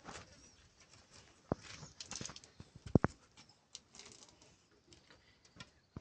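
Irregular light knocks and clicks with some rustling, and two sharper knocks about one and a half and three seconds in, the second the loudest.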